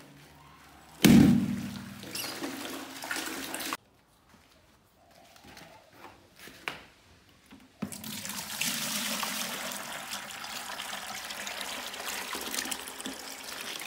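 A loud sudden thump about a second in, dying away over a couple of seconds. From about eight seconds in, water pours steadily from a cut-off plastic bottle into an empty plastic bucket.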